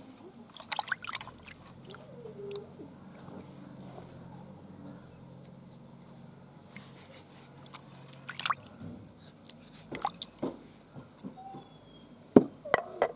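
Water splashing and dripping in a basin as raw chicken pieces are soaked and moved about in salt water, in scattered short splashes with the loudest few near the end.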